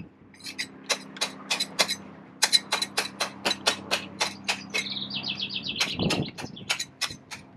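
Hand spray bottle squirting water onto a terracotta tile in quick repeated pumps, about six squirts a second, with a short rapid run about five seconds in.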